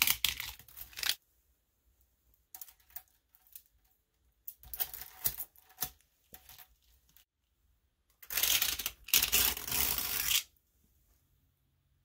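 Thousands of small neodymium ball magnets crackling and clicking against each other as layers of a magnet pyramid are pried apart and lifted off. The sound comes in several bursts, the longest and loudest from about eight to ten and a half seconds in.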